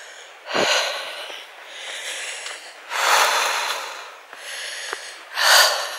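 A hiker's heavy breathing, close to the microphone, while climbing a steep path: three loud breaths a couple of seconds apart.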